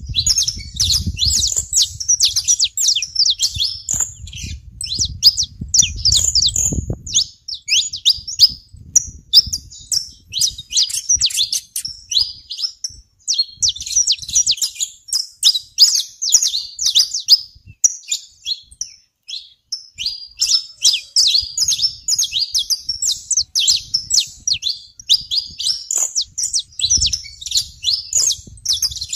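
Flock of saffron finches chirping and singing: rapid, sharp high-pitched chirps in dense runs, broken by a few short pauses.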